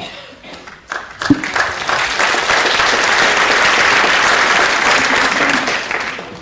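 Audience applauding, swelling about a second in and dying away near the end, with a couple of sharp knocks about a second in.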